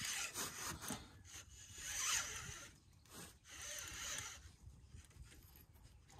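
Fishing reel being cranked in about three short bursts, a rasping whir, as a hooked carp is reeled in.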